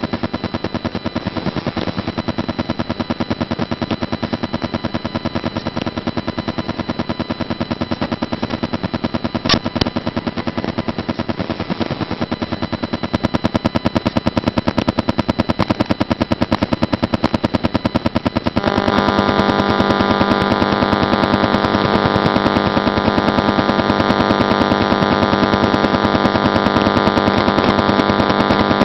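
Radio receiver picking up electrical interference: a rapid, steady ticking, which the uploader attributes to a power transformer. About two-thirds of the way in, a loud, rough buzz joins the ticking.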